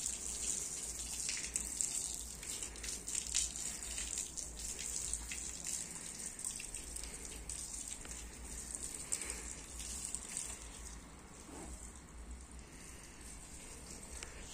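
Water gushing and splashing onto a concrete roof surface, washing it down before waterproofing. It is a steady hiss that eases somewhat near the end.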